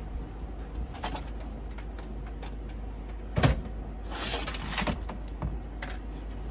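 Kitchen handling of pots and utensils: a few light clicks, one sharp knock about three and a half seconds in, then about a second of clatter, over a steady low hum.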